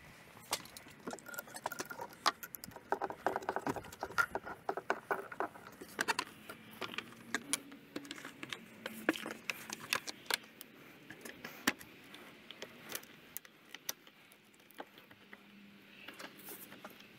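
Irregular clicks and light metallic clinks and rattles of hand tools and fasteners being handled during engine-bay reassembly, as the air box and intake plenum are refitted.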